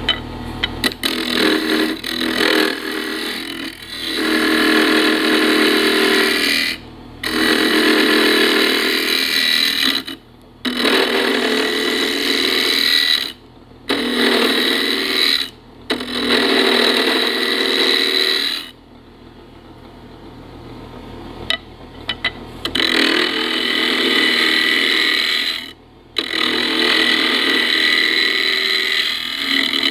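Turning tool cutting a spinning ash blank on a wood lathe, shaping its outside in passes a few seconds long. The passes are broken by short pauses, with a longer quieter spell past the middle, while the lathe keeps running underneath.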